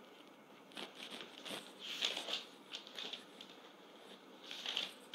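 Faint, scattered rustling with soft clicks, several short irregular bursts, and a sharper click at the very end.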